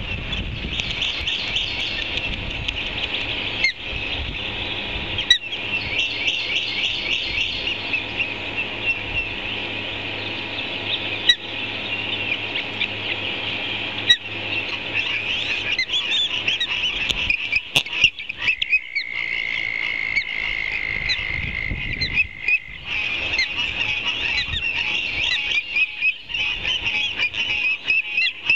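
Ospreys calling at the nest: a continuous stream of rapid, high-pitched chirps, with a few sharp knocks. A little past the middle a steady high tone holds for about four seconds.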